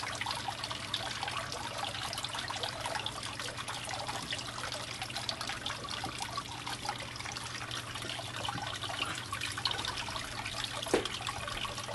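Water trickling steadily in a terrapin tub, with fine splashy crackles over a faint, steady low hum.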